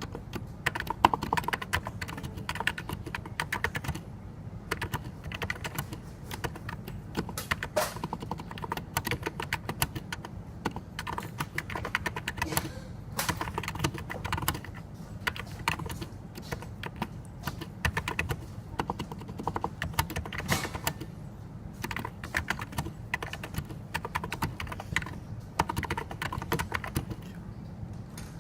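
Typing on a NiZ Plum 84, a Topre-style electrostatic-capacitive keyboard: quick, irregular keystrokes in bursts with short pauses. A steady low hum runs underneath.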